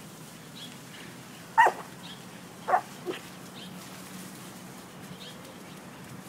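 Dog barking while playing at a garden hose's stream: two sharp barks about a second apart, then a softer third.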